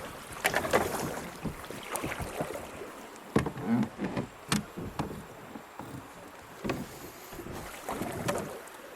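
Kayak paddling on a rocky creek: irregular splashes and knocks from the paddle and hull, about one a second, over a steady wash of moving water.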